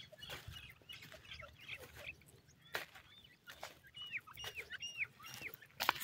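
Grey francolin chicks chirping: a run of short high cheeps, then from about four seconds in a quick series of high arched calls, with a few sharp clicks among them.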